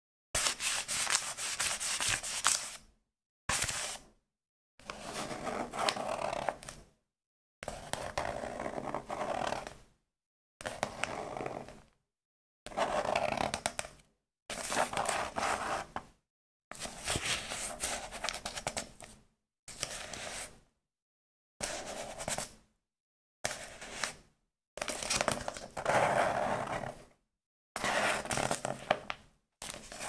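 A small book handled in a run of separate takes: about fourteen short scraping, rubbing handling sounds of paper and cover, each lasting a second or two and cut off into silence.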